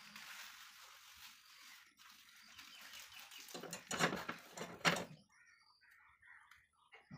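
Clattering knocks and handling noise about four and five seconds in as a soldering iron is put back into its coiled-spring stand on a wooden workbench. After that come faint, repeated short bird chirps.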